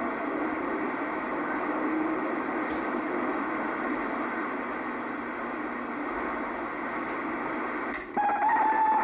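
Steady hiss of static from a two-way radio's speaker while the channel is open with no voice on it. Near the end the hiss cuts out for a moment and a steady whistling tone comes in.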